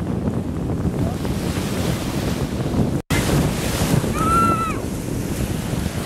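Sea waves washing onto the shore, with wind buffeting the microphone. The sound drops out for an instant about three seconds in, and a brief high call is heard about a second later.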